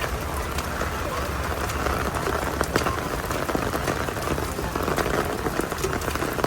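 Heavy rain: a steady hiss with a dense patter of drops striking close by.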